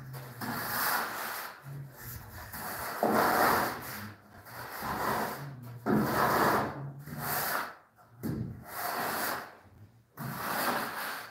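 A long straightedge scraping over a loose sand-and-cement mortar bed as the floor is screeded level, in about six rasping back-and-forth strokes of a second or so each.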